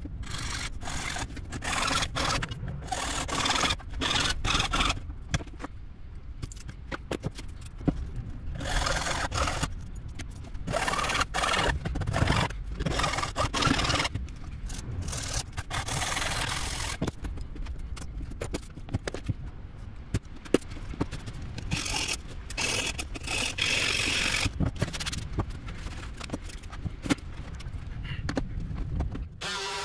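Hand-held frame saw cutting a clear plexiglass sheet, in runs of quick back-and-forth strokes broken by short pauses.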